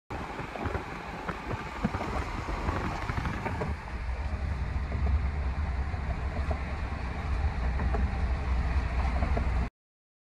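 Wind and outdoor noise, then from about four seconds in the cabin noise of a Cadillac SUV on the move, with a steady low road rumble.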